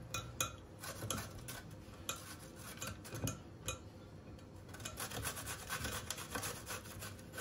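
Courgette being grated on a stainless steel box grater: repeated rasping strokes of the vegetable across the grater's holes, coming quicker and closer together about halfway through.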